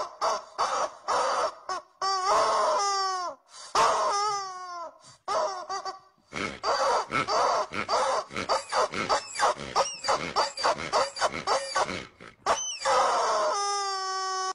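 Pig-like grunts and squeals in quick succession. A few longer squeals fall in pitch a couple of seconds in, then comes a fast run of short grunts, and a longer squeal near the end.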